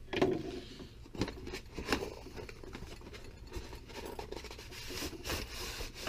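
A blade cutting the seal along the side of a cardboard box, then the box being opened: scraping and rubbing of cardboard, with scattered clicks and knocks.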